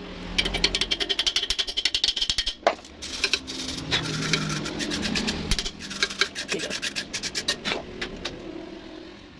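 Electric welding arc crackling and sputtering in rapid, irregular snaps, striking and breaking off in several runs with short pauses between them.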